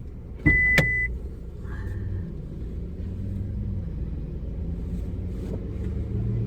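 One electronic beep of about two-thirds of a second, about half a second in, then the steady low rumble of a car running.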